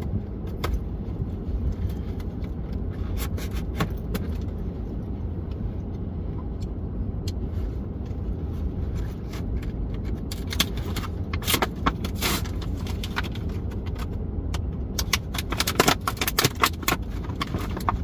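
A multitool and knife pack being unboxed by hand: scattered clicks, scrapes and small metallic rattles, busiest about ten seconds in and again near the end, over a steady low rumble.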